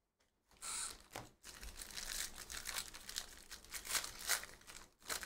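Foil wrapper of a Panini Donruss basketball hobby pack being torn open and crinkled by hand. A short rip comes about half a second in, then steady crackling and tearing of the wrapper.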